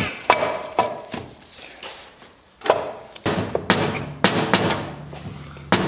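Metal engine parts knocking and clicking against a bare engine block as it is handled and assembled: about a dozen separate sharp knocks, with background music fading out at the start.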